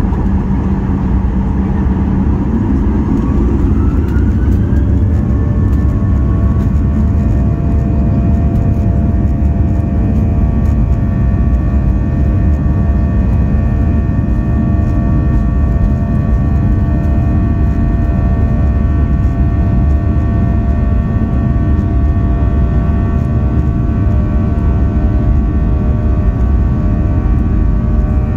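Boeing 737-800's CFM56-7B jet engines spooling up to takeoff thrust. A rising whine climbs over the first five seconds, then holds as a steady set of whining tones over a heavy rumble while the plane rolls down the runway, heard from inside the cabin beside the engine.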